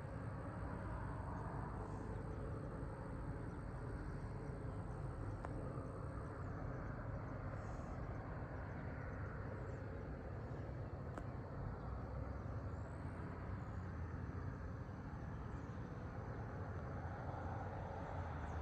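Steady low rumble of distant engine noise, even throughout, with a faint thin high tone above it.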